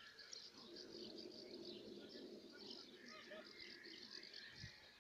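Near silence: faint open-air ambience with scattered distant chirping.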